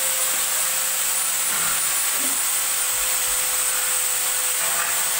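A power tool running steadily, a continuous hiss with a steady high whine, from metal work on window grilles. Faint voices can be heard under it.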